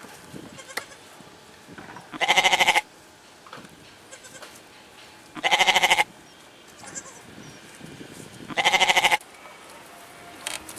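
Domestic goat bleating three times, about three seconds apart. Each call is short and wavering.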